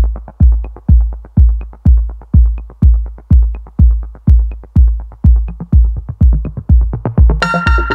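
Electronic dance music: a heavy kick drum about twice a second with light ticks between, joined near the end by a bright synthesizer chord.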